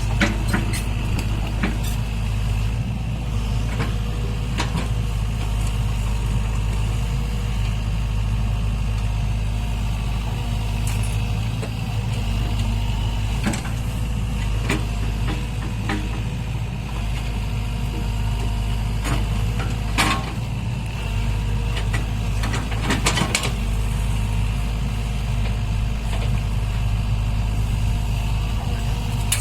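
Heavy-equipment diesel engine running steadily with a deep hum, with a few sharp knocks and clanks scattered through it, the loudest about 20 seconds in and a cluster around 23 seconds.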